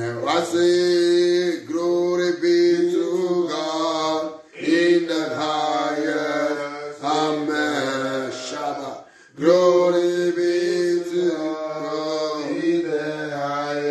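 A man singing a slow praise song alone, without accompaniment, in long held notes, pausing for breath about four and a half and nine seconds in.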